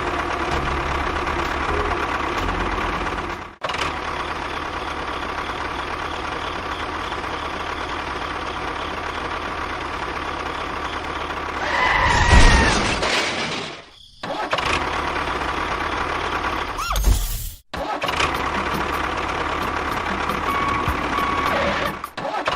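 Engine-like running of a mini construction vehicle's motor, steady, with abrupt breaks a few times and a louder surge about twelve seconds in.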